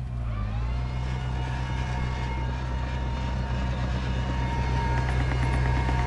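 Komatsu D31P bulldozer's diesel engine running steadily under work, a deep drone with a steady high whine over it. The sound drops briefly at the start and builds back within about a second.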